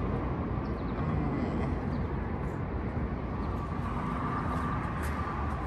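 Steady rumble of road traffic, with a faint steady hum.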